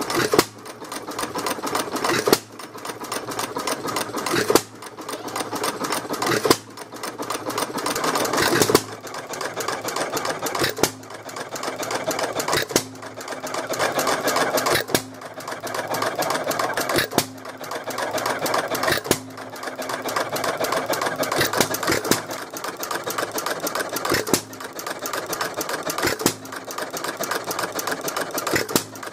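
1915 Fairbanks-Morse Model Z hit-and-miss engine running under its governor: a sharp firing bang about every two seconds, with a fast mechanical clicking as the flywheels coast between firings.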